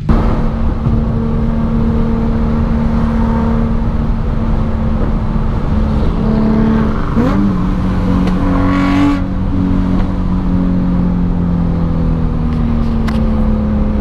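Nissan 350Z's 3.5-litre V6 heard from inside the cabin while driving, a steady engine drone over road noise. About seven seconds in, the pitch jumps briefly and settles a little lower, as with a gear change, and a short rush of noise follows about two seconds later.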